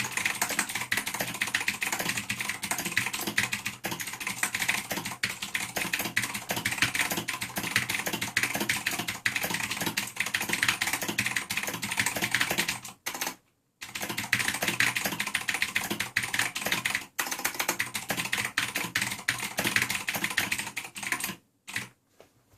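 Fast typing on a Razer BlackWidow Ultimate 2013 mechanical keyboard with clicky Cherry MX Blue switches, a dense run of key clicks. It breaks off briefly about 13 seconds in and stops about a second before the end.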